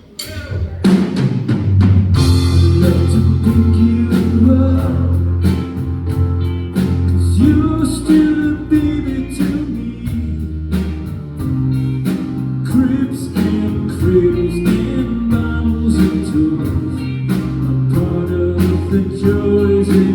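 Live pop-rock band playing a song's opening with drum kit and guitar over a steady beat, starting about a second in after a brief pause.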